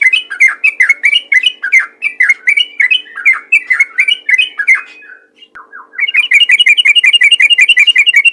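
Sooty-headed bulbul (trucukan) singing loudly in its rapid 'ropel' style: a string of quick chirping notes about three a second, a brief pause about five seconds in, then a fast, even run of repeated notes about seven a second. A faint steady hum lies underneath.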